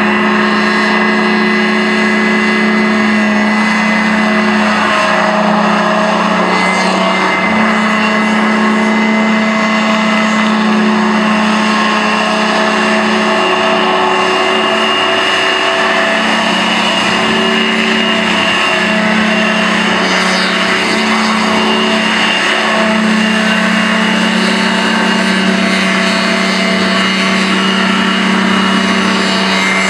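Small hovercraft's engine and air propeller running, a loud steady hum that shifts slightly in pitch now and then.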